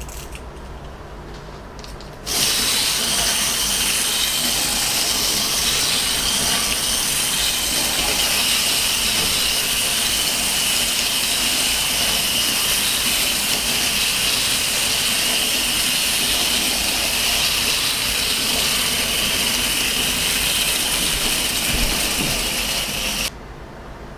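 Two Capsule Plarail toy Thomas trains with wind-up motors running around a plastic track: a steady whirring buzz of their gears and wheels. It starts suddenly a couple of seconds in and cuts off suddenly near the end.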